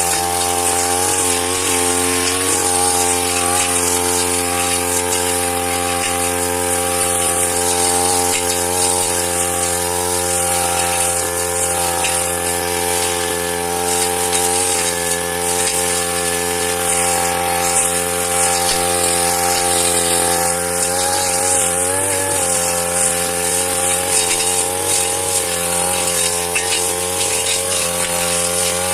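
Motorised grass cutter running steadily at working speed, its engine pitch wavering briefly about a second in and again around twenty seconds in.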